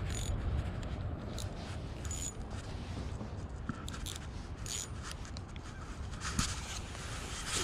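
Scraping and rubbing from a spinning rod and reel being handled, with scattered short clicks, over a steady low rumble.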